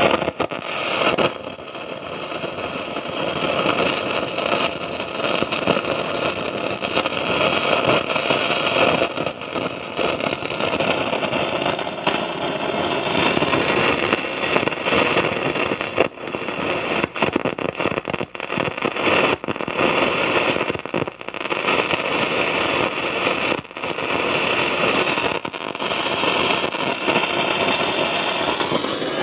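A 1960s GE hybrid tube-and-transistor AM/FM table radio giving out steady static through its speakers, with frequent crackles and pops and hardly any station coming through: the set is faulty and barely receiving.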